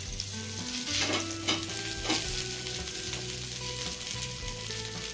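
Whole tomatoes and half an onion sizzling as they dry-roast in a hot frying pan, with a few sharp crackles about one to two seconds in.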